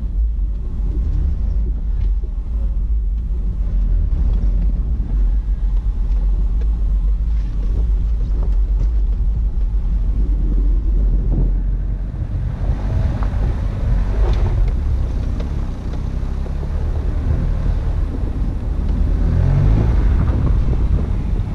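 Steady low rumble of a 2003 Subaru Forester driving down a rough, snow-covered track, picked up by a camera mounted on the outside of the car. About halfway through, a rushing hiss of wind on the microphone joins in and grows louder.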